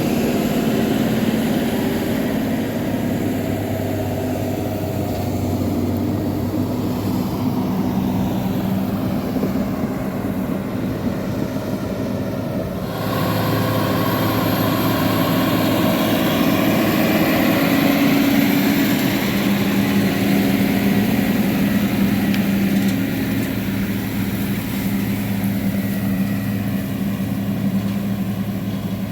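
John Deere 7430 Premium tractor's six-cylinder diesel running steadily under load while it pulls a slurry tanker with soil injectors. The engine note changes abruptly about halfway through and then runs a little louder.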